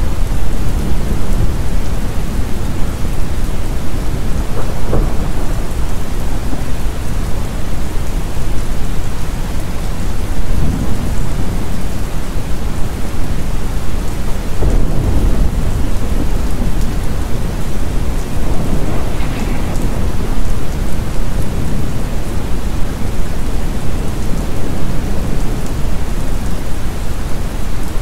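Steady heavy rain with low rolling rumbles of thunder that swell and fade several times.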